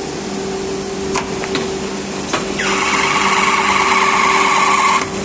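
Automatic pipe threading machine running: a steady motor hum with a few sharp clicks. About two and a half seconds in, a louder noise starts, runs for about two and a half seconds and cuts off suddenly.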